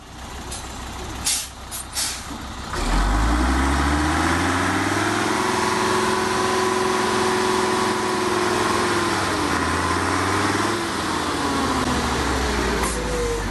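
An old Mercedes-Benz truck's diesel engine revs up hard under load about three seconds in. It holds steady while the truck crawls through deep mud, then eases off and drops lower near the end. A few short sharp noises come before the engine rises.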